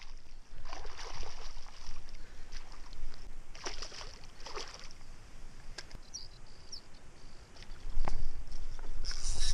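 A hooked fish splashing and thrashing at the water's surface beside a small boat, in two main bursts of splashing with smaller splashes between.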